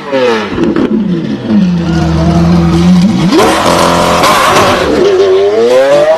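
Lamborghini Aventador V12 being revved. The engine note falls and settles on a steady low note, shoots up sharply about three seconds in and holds high, then dips and climbs again near the end.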